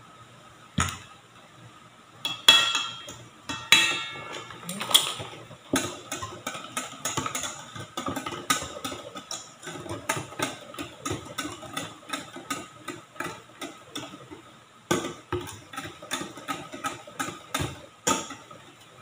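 Wire whisk beating a batter of eggs, sugar and oil in a stainless steel mixing bowl: a fast, even clatter of metal clicks against the bowl, about three a second, with a brief pause near the end. In the first few seconds come a few louder knocks that ring like struck metal.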